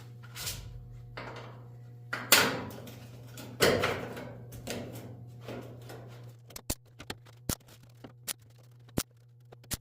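Tack welding a sheet-metal fuel filler neck panel into a pickup cab: a few short bursts that fade quickly in the first four seconds, then a run of brief sharp clicks and taps, over a steady low hum.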